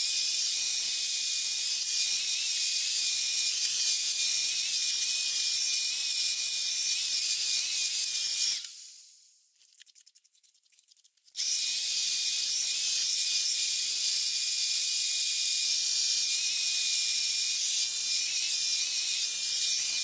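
Parlux Alyon hair dryer blowing, with its nozzle fitted: a steady rush of air with a thin high whine. It dies away about nine seconds in, and about two seconds later it comes back on suddenly at the same steady level.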